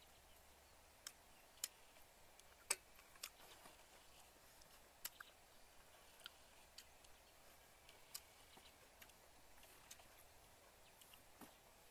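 Near quiet with about a dozen short, sharp clicks and ticks at irregular spacing, the loudest a little under three seconds in.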